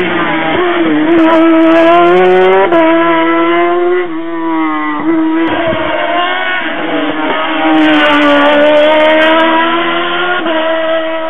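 Race car engine revving hard at high rpm, its pitch climbing and dropping repeatedly as it works through a hairpin and accelerates away, fading near the end.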